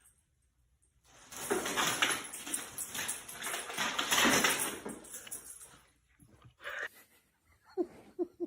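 A dog making a few seconds of loud, rough, noisy sound, then several short whimpers near the end.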